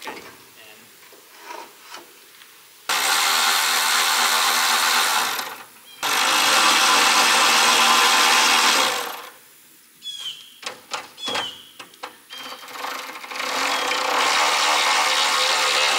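Power drill driving screws into the wooden panel frame, running in three bursts of about two to three seconds each, starting and stopping abruptly.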